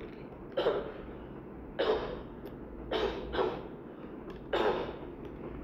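A man coughing about five times in short separate coughs, two of them close together about three seconds in.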